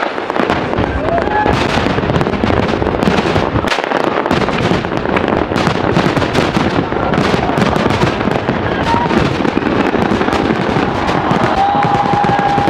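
Large fireworks display: a continuous barrage of overlapping bangs and crackling from bursting aerial shells.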